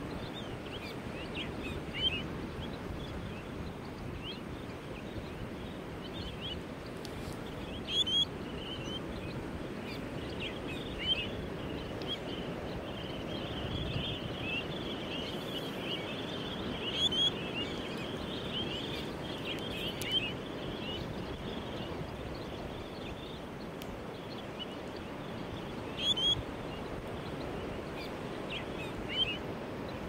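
Surf breaking on a reef shore, a steady wash of waves. Over it come short, high bird chirps now and then, with a dense run of many chirps from about 12 to 20 seconds in.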